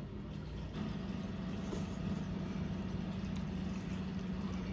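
Engine idling: a steady low drone that grows a little louder about a second in.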